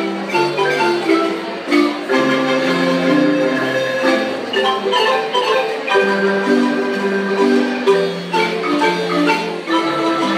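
Ensemble music played on two wooden marimbas: a melody of long held, rolled notes in the upper keys over a moving bass line in the low keys.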